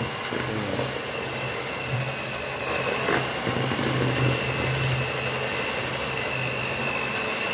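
Electric hand mixer running steadily, its beaters churning thick ground-fish paste in a plastic bowl, with a constant motor whine over a low hum. The paste is being beaten until it turns thick and dense.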